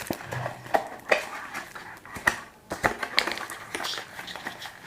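Phone-box packaging and accessories being handled: scattered sharp clicks and taps of hard plastic, with brief rustling of cardboard and plastic wrapping.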